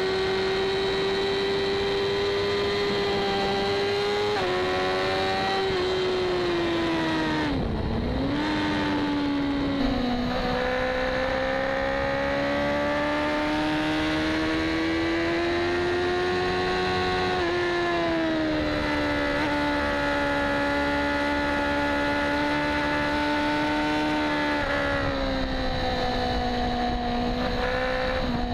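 BMW HP4 superbike's inline-four engine at high revs under load, heard from on board over steady wind rush. The pitch holds high, dips sharply and climbs back about eight seconds in, then rises slowly and steps down a few times.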